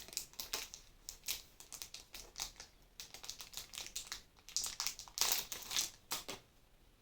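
Packaging crinkling and rustling in irregular crackles as a small item is unwrapped. The crackles are loudest about five seconds in and stop shortly before the end.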